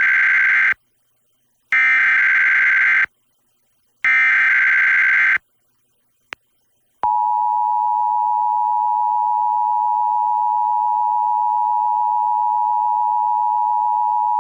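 Emergency Alert System SAME header for a Required Monthly Test: three bursts of digital data tones, each just over a second long. About seven seconds in, the steady two-tone EAS attention signal starts.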